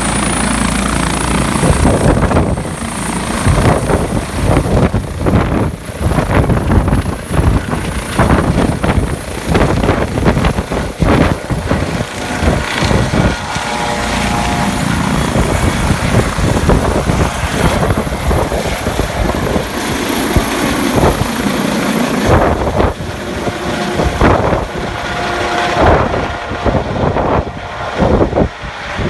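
Airbus H155 twin-turbine helicopter lifting off and climbing away: a steady high turbine whine over the rapid beat of the main rotor, with gusts of rotor wash buffeting the microphone. The sound eases off near the end as the helicopter climbs overhead.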